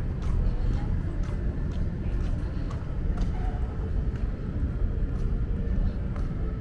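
Walking ambience on a city waterfront: a steady low rumble with faint footsteps about twice a second and scattered distant voices of passers-by.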